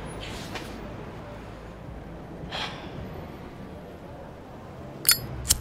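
Metal flip-top lighter clicked open and struck: two sharp metallic clicks about half a second apart near the end, over a steady low street hum.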